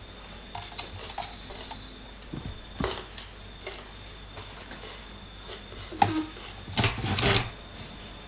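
A hand rummaging inside a cardboard box, a sprig of rosemary brushing and tapping against the cardboard with scattered light knocks and rustles. The loudest cluster of knocks comes about seven seconds in.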